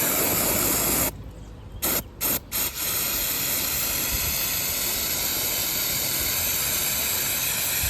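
Aerosol can of brake cleaner spraying with a steady hiss. The spray cuts off briefly three times in the first three seconds, then runs without a break.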